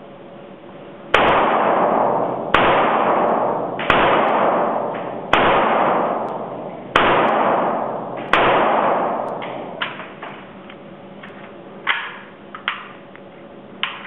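AK-47 rifle firing six deliberate single shots about one and a half seconds apart, each crack ringing out in the long echo of an indoor range. Several lighter clicks and clanks follow near the end.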